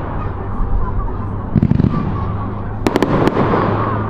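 Aerial fireworks going off: a deep boom about a second and a half in, then a quick run of sharp cracks about three seconds in, over the murmur of the watching crowd.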